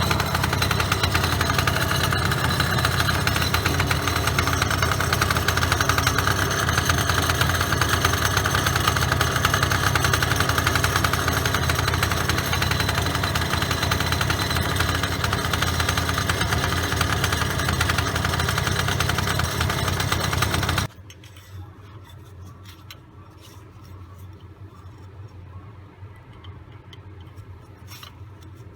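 Suzuki Address V100 scooter's two-stroke engine running steadily with a clattering rattle, which the owner traces to the clutch. The engine stops abruptly about three quarters of the way through, leaving a few faint clicks.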